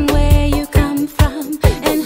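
Reggae song: a heavy bass line and a steady drum beat, with a melody line over them.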